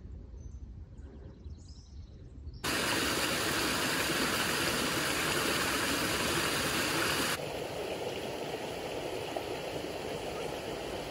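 Creek water rushing over rocks, cutting in suddenly about two and a half seconds in and loud for about five seconds, then dropping to a softer, steady flow of water. Before it there is only a quiet low rumble.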